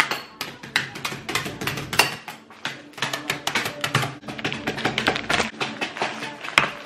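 Metal spoons banging on cookies in a plastic zip-top bag on a granite countertop, crushing them: a quick, irregular run of sharp taps and knocks, several a second.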